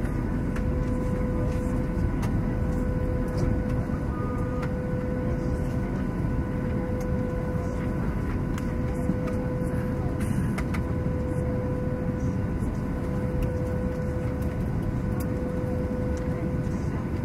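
Onboard audio from a HobbyKing Bixler 2 RC plane in flight: a steady rush of wind over the airframe with the electric pusher motor and propeller running at constant speed, a steady hum.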